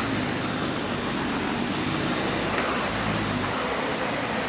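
Dyson vacuum cleaner running steadily, a rush of suction airflow over a fairly quiet motor as it cleans up dirt, with a few faint ticks.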